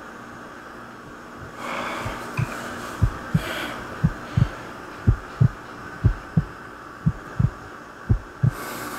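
Heartbeat sound effect: paired low thumps, lub-dub, about once a second, starting about two seconds in, over a faint steady hum.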